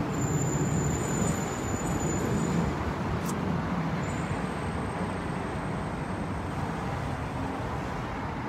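Steady street traffic noise from passing cars, with a single faint click about three seconds in.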